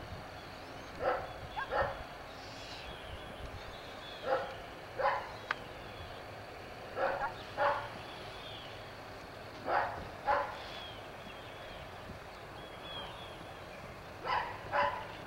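A dog barking in pairs, a short double bark about every three seconds, five times over, with faint bird chirps behind.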